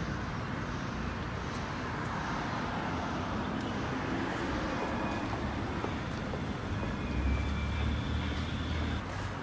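City street ambience: steady traffic noise from passing cars, with a deeper low rumble for a couple of seconds near the end.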